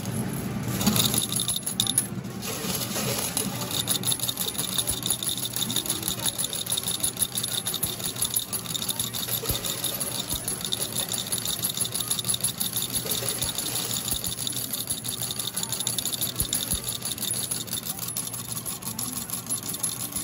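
Medal pusher arcade machine: a continuous rapid clatter of many metal game medals rattling and sliding against one another and dropping.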